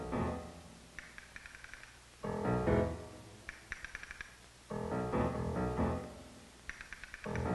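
Background score music: a low, full phrase comes in about every two and a half seconds, with quick, light high notes in the gaps between.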